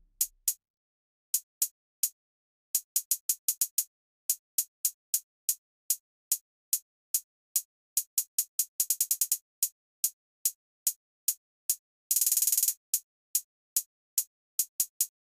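Drum-machine hi-hats ticking on their own, with no bass or other instruments, in an uneven trap pattern. A quick roll comes about nine seconds in, and a short, fast buzzing roll lasts about half a second near twelve seconds.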